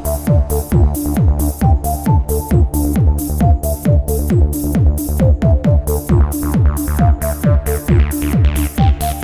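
Electronic dance music with a steady four-on-the-floor kick beat, about two beats a second, with hi-hats and a repeating synth melody.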